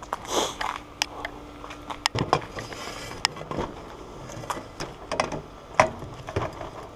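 A patio umbrella pole being handled and set into the centre hole of a glass-topped patio table: irregular knocks, clicks and short scrapes.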